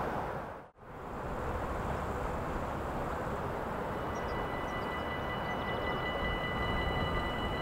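A Dutch level crossing's electronic warning bell starts ringing about halfway through as a steady high ringing tone. It signals that the crossing has activated for an approaching train, just before the barriers lower. Underneath is a steady rushing background noise that drops out for an instant less than a second in.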